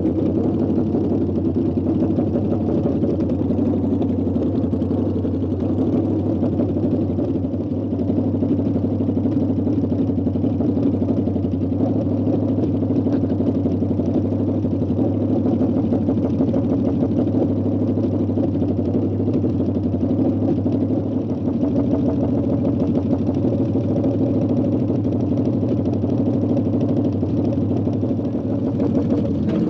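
An engine running steadily, its drone holding one pitch and level throughout.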